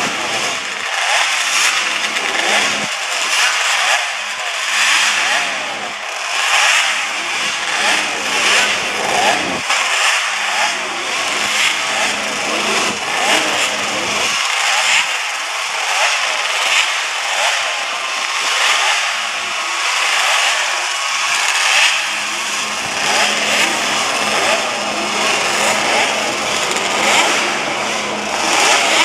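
Several classic Yamaha two-stroke racing motorcycles running together, their throttles blipped over and over so the revs rise and fall in quick, overlapping bursts.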